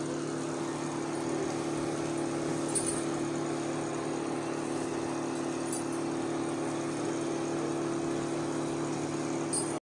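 Steady hum of an induction cooktop running under a nonstick pan, its cooling fan and coil giving a constant low drone with an even hiss. A few faint scrapes from a wooden spatula stirring thick besan dough come through, and the sound cuts off abruptly near the end.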